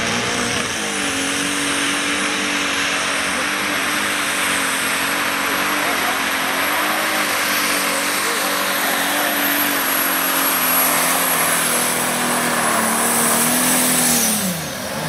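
Diesel pulling tractor running flat out under full load down the track, its engine note held high with a slight waver and a steady high whistle above it. About 14 seconds in, the whistle and the engine note drop away as the throttle is shut at the end of the pull.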